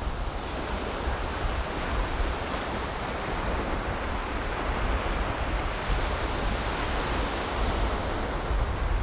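Steady wash of ocean surf, with wind buffeting the microphone in a low, gusty rumble.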